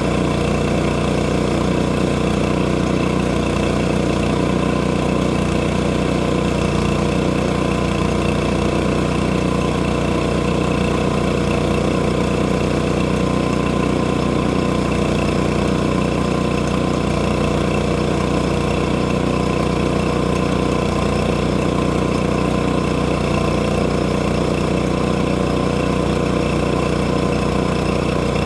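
Sawmill engine running steadily at one constant speed.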